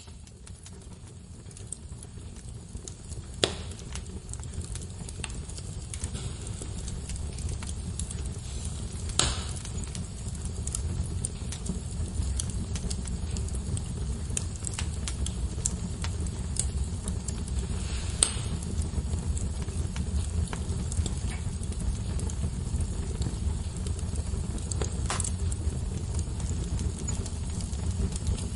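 Wood fire burning in a fireplace: a steady low rumble of flames that grows louder over the first ten seconds or so. Small crackles run throughout, with four loud sharp pops from the burning wood.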